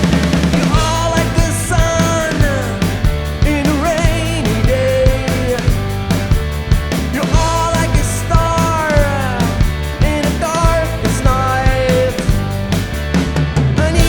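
Rock band playing live: a steady drum and bass groove under a lead melody of sliding, bending notes.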